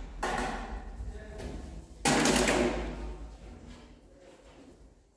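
Green folding table with metal legs being folded up and moved on a tile floor: a clattering knock just after the start and a louder one about two seconds in, each trailing off over about a second.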